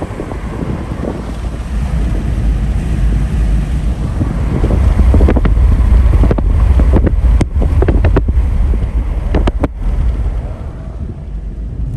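Car driving, with steady low road and engine rumble and wind buffeting the microphone. Several sharp knocks come in the middle stretch.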